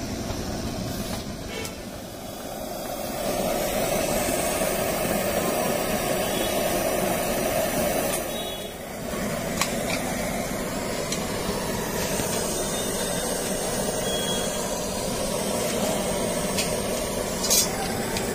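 Steady rush of street traffic, with a few light clicks and one sharp metal clack near the end as the cast-iron sandwich toaster is handled on the stove.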